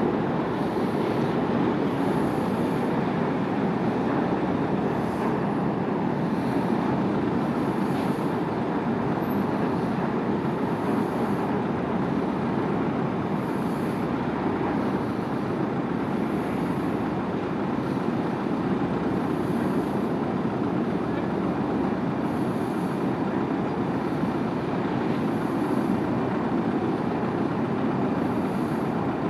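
Steady outdoor rumble and hiss at a port quay, even in loudness and with no distinct events.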